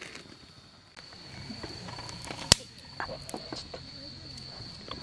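Insects, crickets or similar, trilling as one steady high-pitched tone. A single sharp click about halfway through is the loudest sound, with a few lighter knocks around it.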